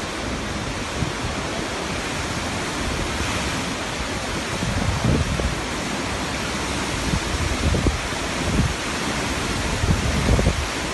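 Strong storm wind, a steady loud rushing noise, with gusts buffeting the microphone in low thumps several times.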